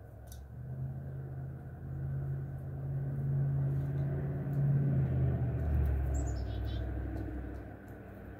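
A low rumble, as of a vehicle passing by, builds over a few seconds and fades near the end. About six seconds in, a small bird gives a brief run of quick chirps stepping down in pitch.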